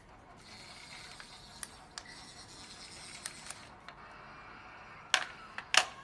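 Small geared electric motor of a remote-control toy train whirring as it runs, dropping off about three and a half seconds in, with a few light ticks. Two sharp clicks near the end are the loudest sounds.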